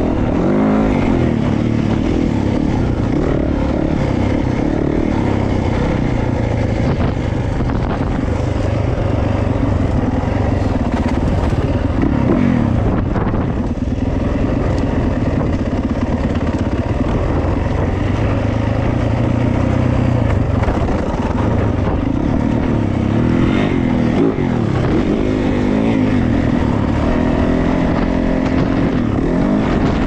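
Yamaha YZ450F dirt bike's single-cylinder four-stroke engine running under way, its pitch rising and falling again and again as the throttle is opened and closed.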